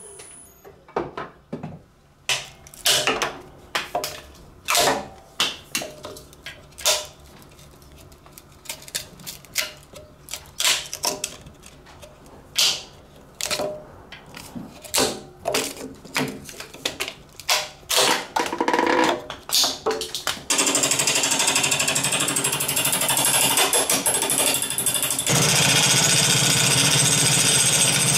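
A carbide turning tool cutting a spinning epoxy resin and golf ball blank on a woodturning lathe: a run of short, separate cuts at about two to three a second, then, about twenty seconds in, one continuous cut that is louder.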